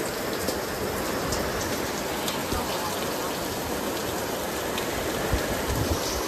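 Torrential rain pouring down: a steady, dense hiss of heavy rain on the ground and roofs, with a few nearer drops tapping now and then.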